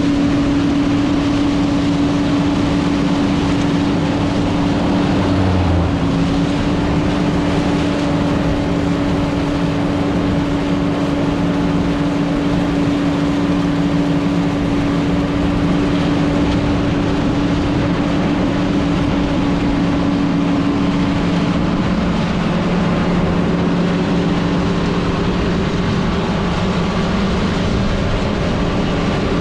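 John Deere 9600 combine running steadily while harvesting soybeans: a constant machine hum with a steady drone.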